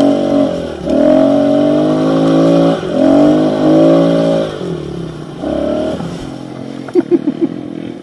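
Kawasaki KLX110 pit bike's small single-cylinder four-stroke engine revving up and dropping back as the rider works the throttle on a trail climb, then settling to a lower, steadier run after about five seconds, with a few quick blips near the end.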